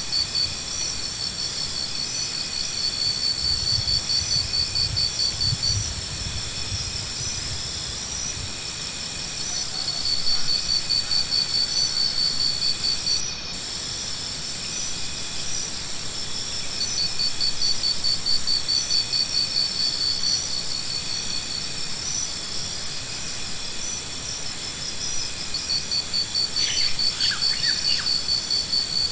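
Insects calling: a high, fast-pulsed trill that comes in bursts of two to three seconds every several seconds, over a steady high buzz.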